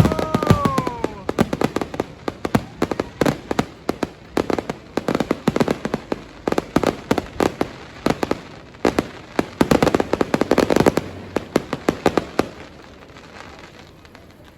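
Fireworks going off: rapid crackling bangs and pops, with a falling whistle in the first second or so. The bangs thin out and stop about two seconds before the end.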